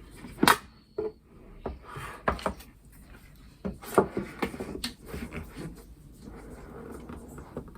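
Irregular knocks and clicks with soft rustling between them, from the Logitech G915 keyboard and its cardboard and plastic packaging being handled. The sharpest knocks come about half a second in and around four seconds in.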